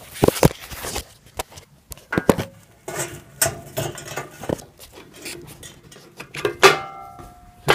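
Metal parts of a homemade soldering gun's clamp clinking and clanking as they are pulled apart by hand: irregular knocks and rattles, with a louder clank near the end that rings briefly.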